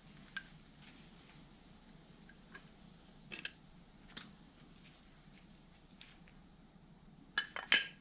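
Light metallic clinks from the thin metal shim plates being removed from an old 2012 Toyota RAV4 brake pad. A few scattered single clicks are followed near the end by a quick run of sharper, ringing clinks, the loudest.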